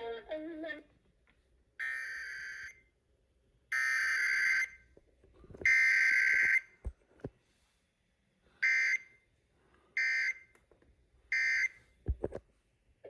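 Emergency Alert System SAME digital data bursts, a rasping two-tone warble: three longer header bursts about a second apart, then three short end-of-message bursts. No attention tone or voice message comes between them, the pattern of a header-only required weekly test.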